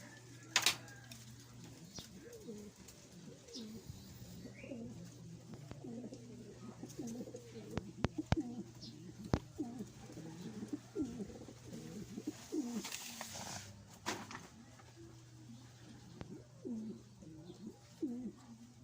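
Domestic pigeons cooing in a loft: many low, overlapping coos that repeat throughout, over a steady low hum. A couple of sharp clicks come about eight and nine seconds in.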